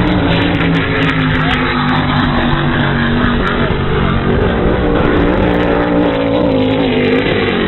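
Offshore racing powerboats' engines running flat out as the boats pass, a loud continuous drone whose pitch sags slightly midway and climbs again near the end.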